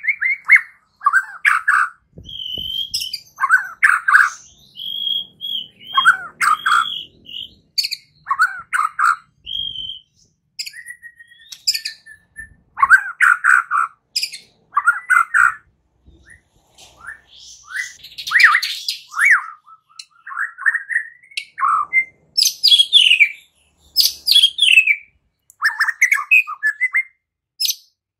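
White-rumped shama (murai batu) singing: a string of varied phrases of clear held whistles and quick warbling notes, separated by short pauses.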